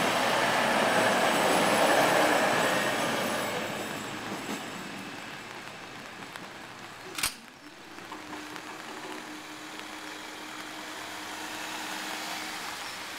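Class 220 Voyager diesel multiple unit running past, loud at first and fading away over the first few seconds. A sharp click about seven seconds in, then a faint steady low hum as the level crossing barriers start to rise.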